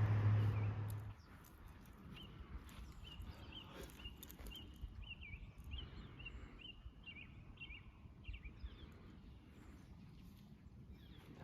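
A bird calling outdoors, a run of short high chirps repeated many times over several seconds, after a low steady hum that cuts off about a second in.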